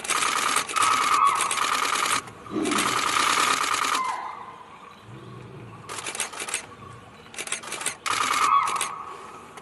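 Camera shutters firing in rapid bursts, each burst a second or two long. There is a lull in the middle, and then shorter bursts near the end.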